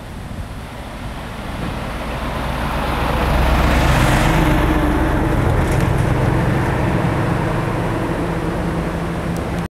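A motor vehicle passing close by on the road, its engine and tyre noise swelling to a peak about four seconds in and staying loud until it cuts off suddenly, over the rush of the river.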